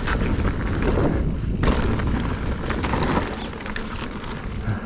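Specialized Stumpjumper mountain bike riding a rocky dirt trail: wind buffeting the microphone, tyres rolling over dirt and rock, and sharp knocks and clatter from the bike.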